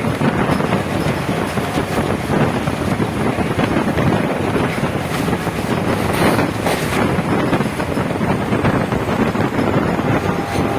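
Moving passenger train running along the track, a steady rumble of wheels on rail with wind buffeting the microphone, and a few brief crackles about six seconds in.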